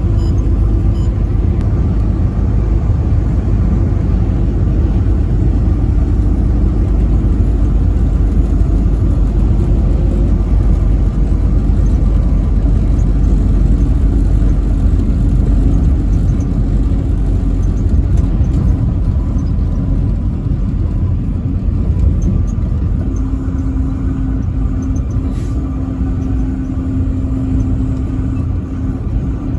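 Semi truck driving on the highway: steady, loud low engine and road rumble. A steady hum joins in near the end.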